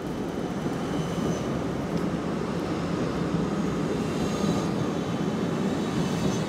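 Electric low-floor tram passing close by, its wheels running along the street rails in a steady noise that grows slightly louder as it comes alongside, with faint high squeals from the wheels.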